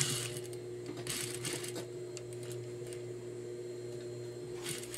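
Juki industrial sewing machine stitching a bartack across the corner of a pocket to keep it from shifting. It runs in short bursts, near the start, around the first second and again near the end, over the steady hum of its motor.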